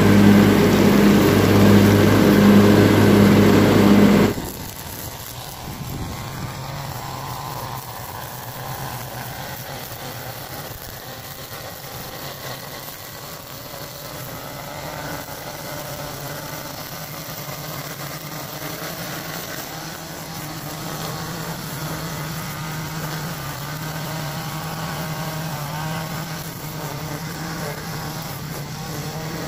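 Gas string trimmer's small two-stroke engine running steadily with the line spinning. It is loud with a harsh hiss for the first four seconds, then drops suddenly to a quieter, steady hum.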